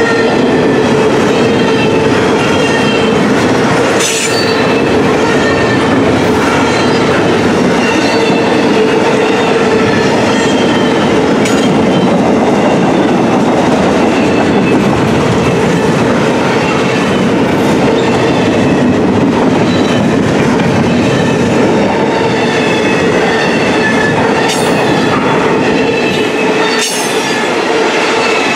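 Double-stack intermodal container cars of a freight train rolling past, loud and steady: steel wheels running on rail with a wavering wheel squeal and a few sharp clacks.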